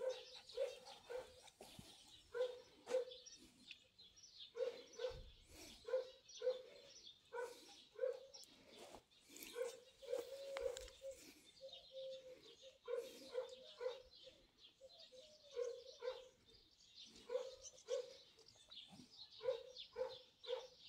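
Small dog barking repeatedly, in quick runs of two or three barks with short pauses between.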